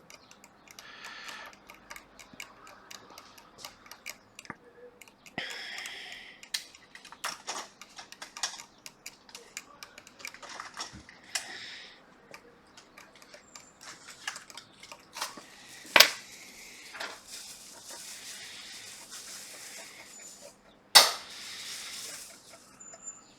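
Small tools clicking and tapping at a repair bench during work on a laptop logic board, with several short stretches of hiss. Two sharper, louder knocks come about two-thirds of the way in and again near the end.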